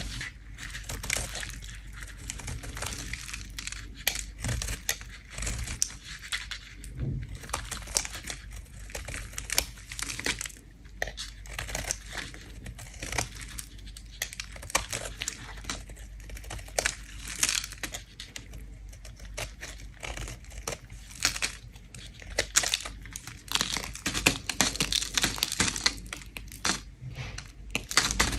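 A bar of soap being scraped with a blade, shaving off curls in quick, irregular scratchy strokes, several a second.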